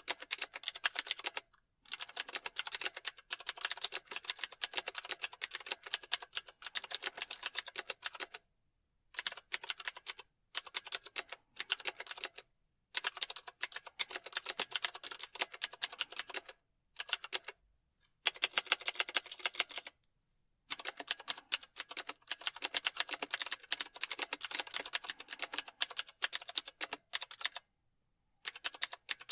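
Computer keyboard typing: fast runs of key clicks in bursts of a few seconds, broken by short pauses.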